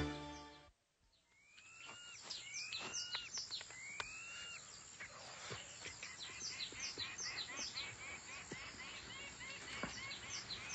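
Music fades out at the start, then a jungle bird ambience comes in. It opens with three arching whistled calls, then many quick descending chirps repeat over a faint background hiss.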